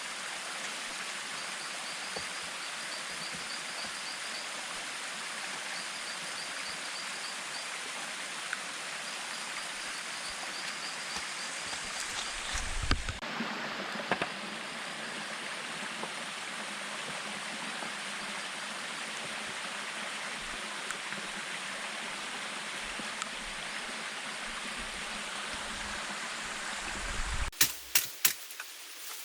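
Steady hiss of water, even and unbroken, with a faint high chirping repeating through the first several seconds. Near the end come a few sharp knocks.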